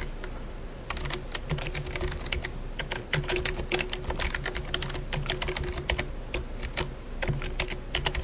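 Typing on a computer keyboard: quick, uneven keystrokes that start about a second in, entering a command at the command prompt. A faint steady hum runs beneath.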